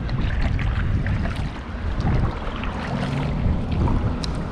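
Kayak paddle strokes splashing and dripping in calm water, with wind buffeting the microphone.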